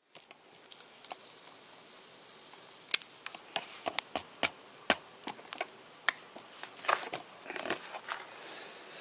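A run of irregular sharp clicks and ticks over faint room hiss, starting about three seconds in and ending near the end, the first click the loudest.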